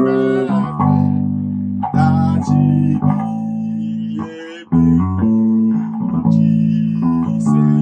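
Bass guitar playing a slow melodic phrase of held notes, each ringing for about half a second to a second before the next note is plucked. The phrase demonstrates a note substitution in a song's bass line.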